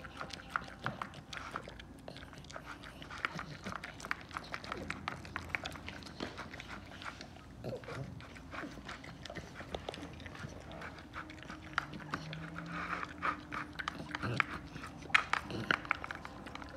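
A dog eating moist raw ground meat from a plastic bowl: a steady run of quick chomping and lip-smacking clicks.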